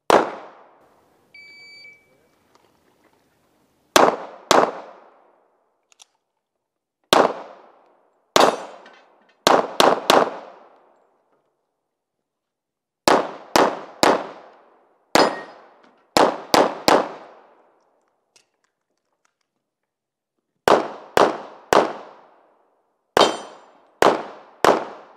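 Pistol gunfire in a USPSA practice string: about two dozen shots, mostly fired in quick pairs and fours a few tenths of a second apart, with pauses of one to three seconds between groups. A single short high beep sounds shortly after the first shot.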